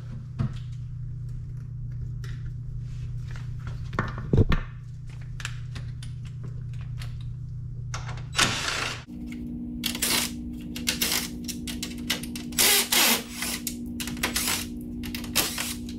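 Scattered clicks, knocks and short rattles of tools and small metal fasteners as Torx screws are worked out of a Ford Bronco's grille mounting plate. Under them runs a steady low hum that shifts higher about halfway through.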